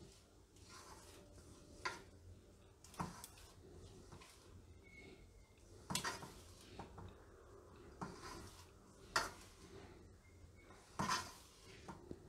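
Hand rubbing oil into dry flour in a steel mixing bowl: a faint rustle of the flour, with about six short knocks as the hand strikes the bowl.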